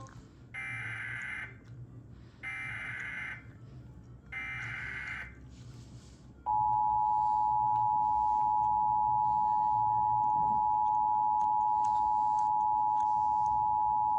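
Emergency Alert System broadcast tones: three short bursts of warbling digital header data, about a second each, then the steady two-tone EAS attention signal starts about six and a half seconds in and holds, louder than the bursts.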